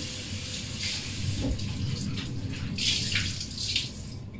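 Kitchen tap running with hands being washed under the stream, the water splashing unevenly; it stops about four seconds in.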